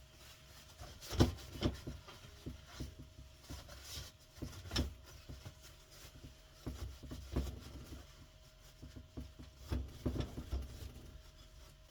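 Scattered light knocks, clicks and rubbing as the paint-stripped metal clock case is handled and worked at, the sharpest knock about a second in, over a faint steady hum.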